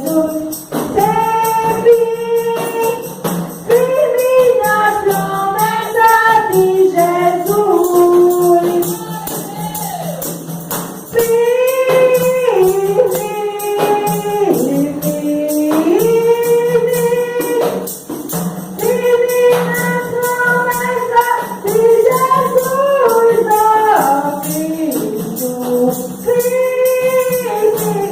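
Gospel hymn sung in a Pentecostal worship service, a melody in long held notes, with a tambourine shaken and struck in a steady beat throughout.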